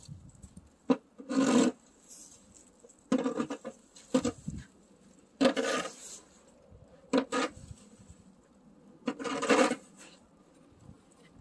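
Boots crunching through fresh snow as someone walks, one crunch about every two seconds.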